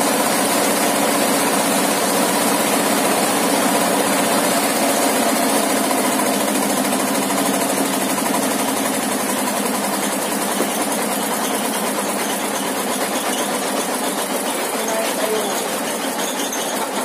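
Stationary engine driving a 60-inch circular-saw sawmill blade, running steadily with a pitched hum, easing slightly quieter in the second half.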